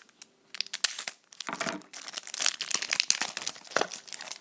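Crinkling and tearing of a foil trading-card pack wrapper, with crackling clicks as the wrapper and cards are handled; it starts about half a second in.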